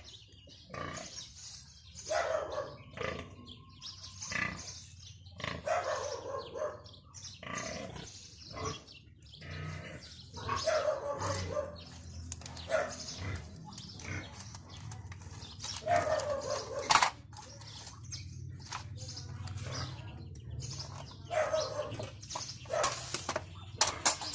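Pigs calling in short, repeated cries every second or two, with a few sharp clicks among them.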